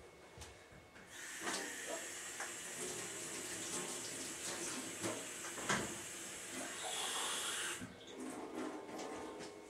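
Tap running into a kitchen sink for about seven seconds, with a few knocks of things set down in the sink, then turned off.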